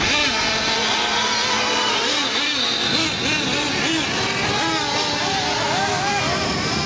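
Several 1/8-scale nitro RC buggy engines revving up and down as the cars race a dirt track. Their high-pitched whines overlap and keep rising and falling through the corners.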